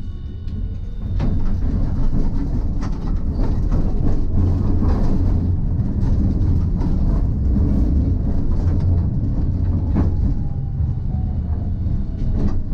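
Hiroshima Electric Railway type 1000 tram running on street track, heard from inside the front of the car: a loud, steady rumble of wheels on rail that builds over the first second and a half as it picks up speed, with scattered clicks over rail joints. Near the end an electric motor whine falls in pitch as the tram slows for the next stop.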